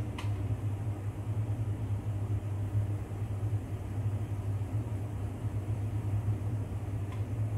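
Steady low rumble of a lit gas burner heating water in an aluminium idli steamer pot. A light tap sounds just after the start as a dumpling is set on the steamer plate, and a fainter tap comes near the end.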